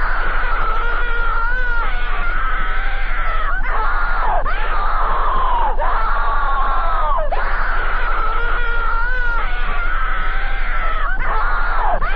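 High-pitched Mickey Mouse-style cartoon voice screaming over and over, a new cry every second or two, each one swooping down in pitch before the next. The recording is loud and thin, with a low hum underneath.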